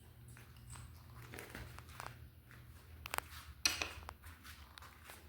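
Wooden toy tool-kit pieces knocking and clicking against each other: scattered light taps, with two sharper knocks a little after three seconds in.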